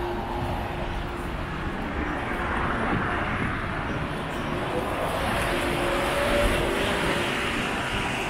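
Busy city street ambience: a steady traffic rumble that swells through the middle as a vehicle goes by, with faint voices of passers-by.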